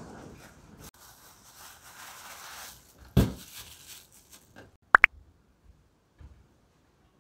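Rustling of a cloth shopping bag and plastic wrap as a wrapped tray of chicken is pulled out. About three seconds in there is a single thump as the tray is set down on the stainless steel counter, and just after five seconds two sharp clicks.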